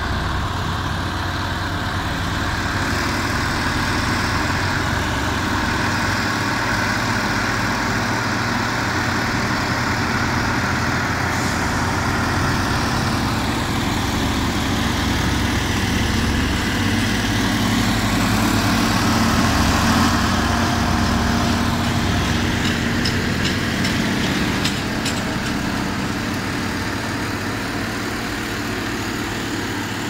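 Heavy diesel engines of an asphalt paver and a pneumatic-tyred roller running steadily, a little louder about two-thirds of the way through.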